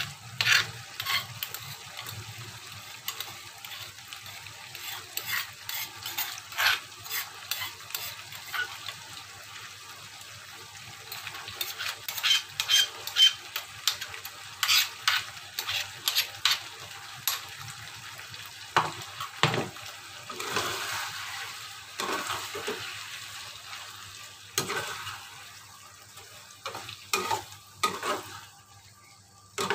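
Metal spoon and metal spatula scraping and knocking, many short clacks, against a mortar and a frying pan as chili paste is scraped into the pan and stirred through the jengkol, tempe and vegetables, over a steady sizzle of frying.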